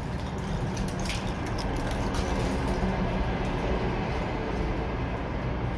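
Steady low rumbling noise with a few faint clicks about a second in.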